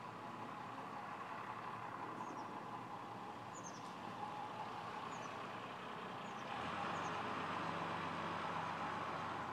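Steady rushing noise that jumps louder about six and a half seconds in, when the hot-air balloon's propane burner fires and keeps burning. Small birds chirp briefly several times.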